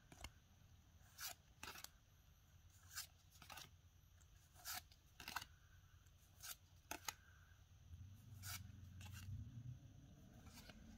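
Pokémon trading cards slid and flicked against one another by hand as each card is moved from the front of the stack to the back. Faint short swishes come roughly once a second.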